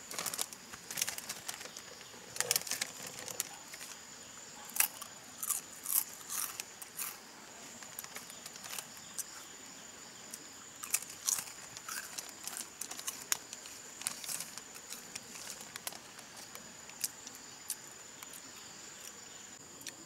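Potato chips being crunched and a foil snack bag crinkling, in irregular crackles that are thickest in the first seven seconds, over a steady high insect drone.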